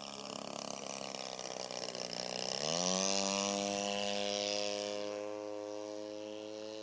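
Opposed-twin two-stroke engine of a radio-controlled Yak-54 aerobatic model plane in flight. Its pitch rises sharply about two and a half seconds in as the throttle opens, holds high, and drops near the end.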